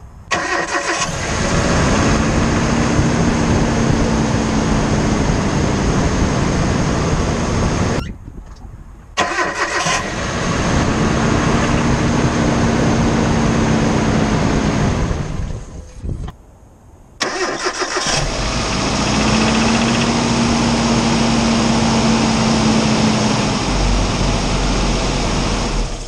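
A cold car engine is started three times in succession. Each time it cranks briefly, catches and runs with a rapid rapping noise from inside the engine. The owner believes it is piston slap, the cold, slightly shrunken pistons rocking and their skirts slapping the cylinder walls.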